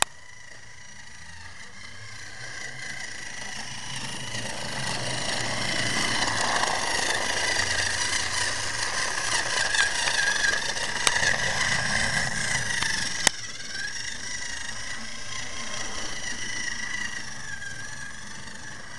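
Battery-powered TrackMaster toy train engine pulling a coach on plastic track: its small electric motor whirs and the wheels rattle, getting louder as it passes close by and then fading away. A couple of sharp clicks come near the middle.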